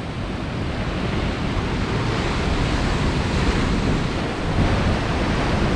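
Ocean surf washing over lava rocks in a steady rush, with wind buffeting the microphone.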